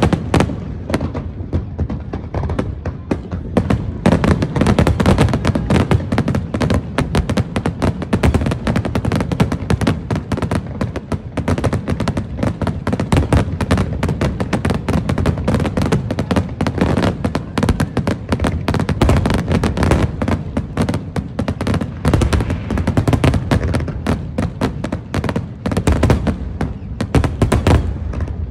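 Aerial fireworks shells bursting in rapid succession: a dense, unbroken stream of bangs and crackles over a deep rumble.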